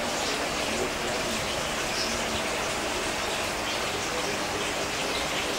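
Steady bubbling and trickling of water from aquarium air stones and filters.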